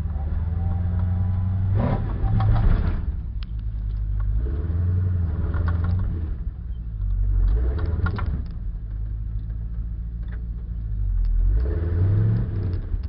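Off-road 4x4 truck's engine, heard from inside the cab, running under load with revs rising and falling as it crawls a rough trail. Three bursts of rattling and scraping cut in over the engine.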